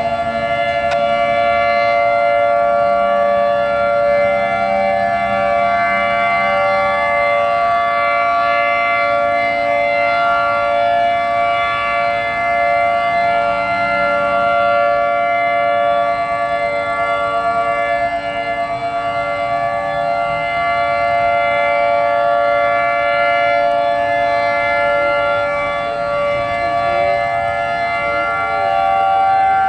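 Several outdoor tornado warning sirens sounding together during a test, each holding a steady tone at its own pitch so that the tones overlap. The overall loudness swells and fades slowly.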